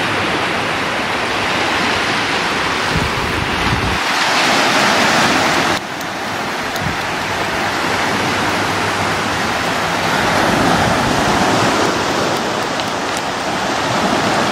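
Surf washing onto a sandy beach, a steady rush of noise, with wind buffeting the microphone. The sound drops suddenly about six seconds in, then carries on.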